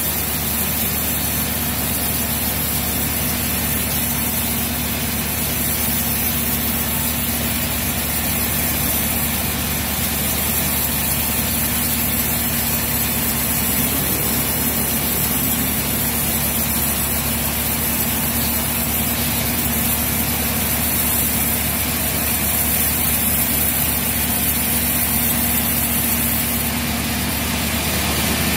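Sawmill band saw running steadily as it rips lengthwise through a dense teak log on the carriage. There is a steady low machine hum under the constant hiss of the blade in the wood.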